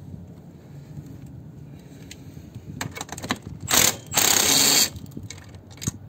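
A cordless power driver with a socket runs in a short blip at about four seconds in, then for just under a second, driving in the bolt that holds a car seat's seat belt buckle to the frame. A few light metallic clicks of parts being handled come just before.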